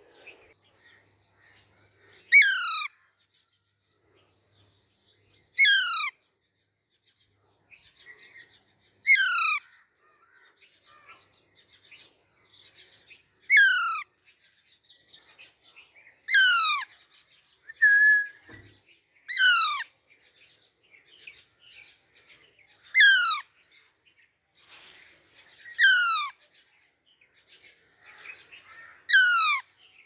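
Young Alexandrine parakeet giving loud, harsh calls that fall in pitch, about nine in all, one every three seconds or so, with soft chattering between them.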